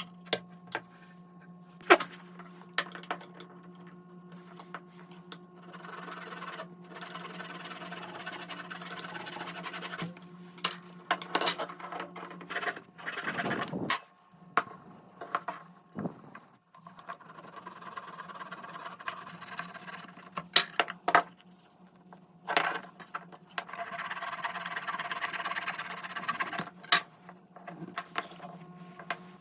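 Hand work on a small wooden piece: long stretches of scraping or rubbing, broken by sharp taps and clicks, over a steady low hum.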